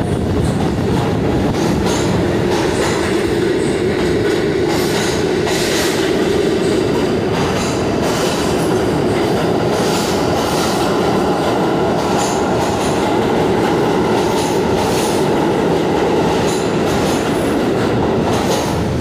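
R46 subway train pulling out and running past close by: a steady loud rumble of wheels on rail and motors, with repeated clicks of the wheels over the rails. A higher motor tone joins about halfway through as it gathers speed.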